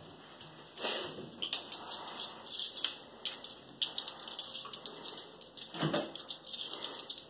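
A ferret scampering about on a ceramic tile floor, its claws giving a fast, irregular clicking and scratching, with a duller bump about a second in and another about six seconds in.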